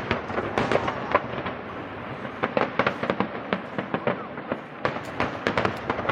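Fireworks display: many sharp bangs and crackles going off in quick, irregular succession, with a constant rumble underneath.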